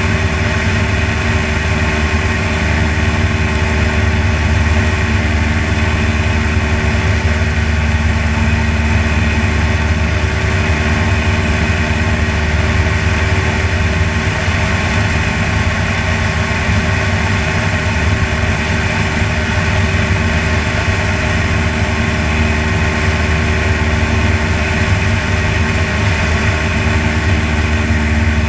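Propeller aircraft's piston engine and propeller running steadily at cruise, a constant drone with no change in pitch.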